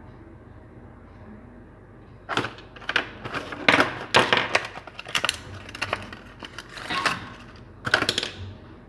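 Sharp clicks and clatter of small hard objects being handled, starting about two seconds in and coming in uneven clusters: wooden jump-frog lures with their hooks knocking together as they are picked up and turned over.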